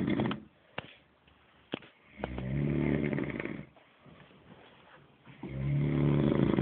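A sleeping man snoring in long pulsing breaths, one about every three seconds, with a couple of small clicks in the quiet gaps between snores.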